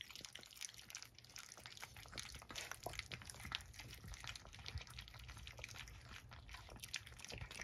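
Young puppies lapping and smacking wet puppy mush from a stainless steel ring-shaped feeding pan: a faint, fast run of small wet clicks and slurps.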